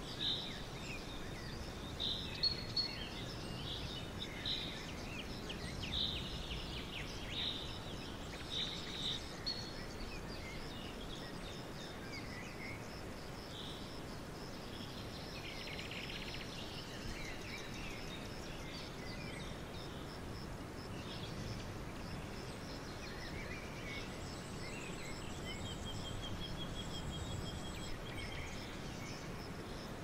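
Small songbirds chirping over steady outdoor background noise: a run of short high calls in the first ten seconds, then a fast, even trill near the end. No pigeon cooing.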